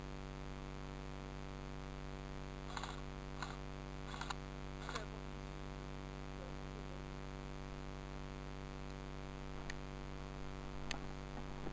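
A steady electrical hum with a handful of short, sharp clicks scattered through it, a few close together in the first half and two more near the end.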